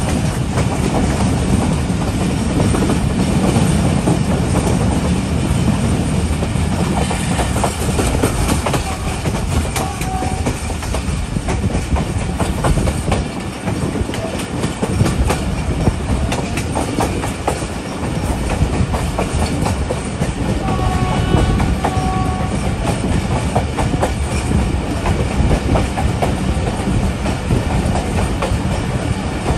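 Passenger train running along the track, its wheels clattering over the rail joints in a steady stream of clicks under continuous rumble and rushing noise. A few short, faint tones sound about two-thirds of the way through.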